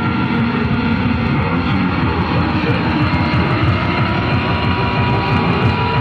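Loud, dense electronic noise music: a low churning rumble with rapid flutter, and thin steady whining tones above it, one growing stronger about halfway through.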